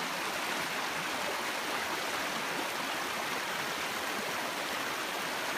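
Shallow creek running over rocks, a steady rush of water.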